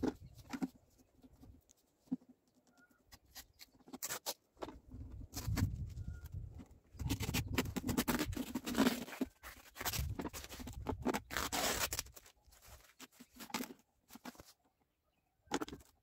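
Wide packing tape peeling off its roll in repeated short noisy bursts as it is wrapped round a birch trunk to hold a cut plastic bottle, densest from about five to twelve seconds in.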